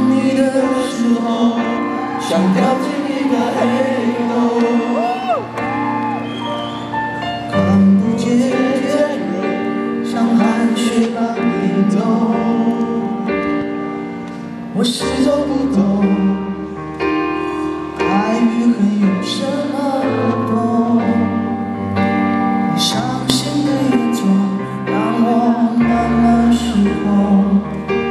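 Live pop ballad: a man sings a slow, wavering melody over sustained keyboard chords and a stepping bass line, with a few sharp crashes along the way.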